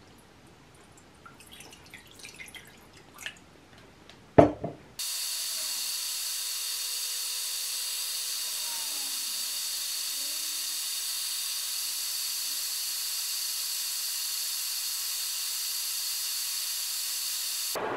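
Water poured faintly into a nonstick aluminium frying pan, with one sharp knock at about four and a half seconds. From about five seconds on, a steady hiss of the water heating toward a boil on an induction hob.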